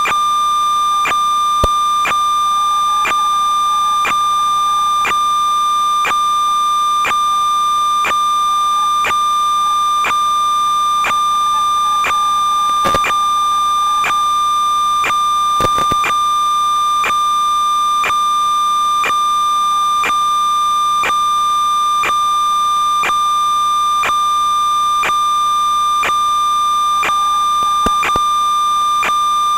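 Steady high electronic whine with a regular tick about once a second and a few louder crackles: the interference noise on the audio track of an analog 5.8 GHz FPV video recording, not the sound of the quad's motors.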